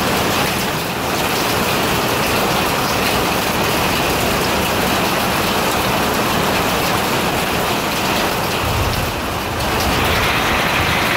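Heavy rain and hail falling on a carport roof in a thunderstorm, a dense steady hiss; a deeper low rumble comes in about nine seconds in.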